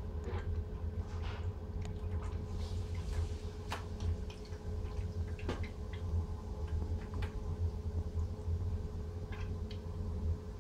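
Steady low hum of a small submersible Eheim Compact 600 water pump circulating water through the hoses and radiator, with scattered light knocks and squishes as the radiator and PVC hose are handled.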